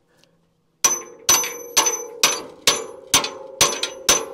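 Steel hammer striking a Morris seeder tine's pivot pin, driving out a stubborn pin. About eight sharp, ringing metal blows at roughly two a second, starting a little under a second in.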